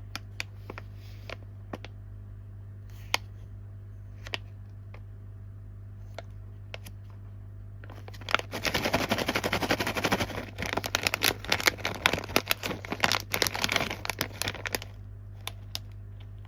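Plastic snack packaging being handled: scattered clicks and taps, then loud, dense crinkling for about six seconds from about eight seconds in, as a wrapper is rustled or torn open. A steady low hum runs underneath.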